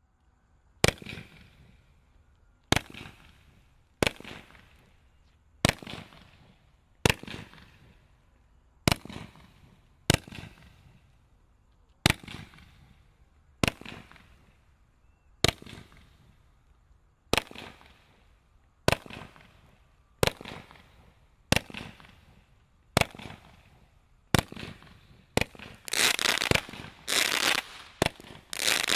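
A Brothers Pyrotechnics Angel Dust battery of mines firing: a sharp report about every second and a half, each followed by a fading tail of sparks. Near the end the shots come fast and run together into a dense, louder stretch of bursts.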